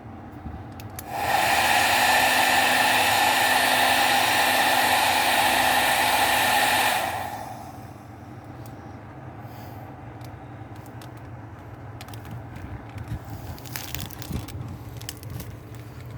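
Hair dryer switched on about a second in, running steadily with a whirring hum for about six seconds, then switched off and winding down. Afterwards only faint clicks and rustling.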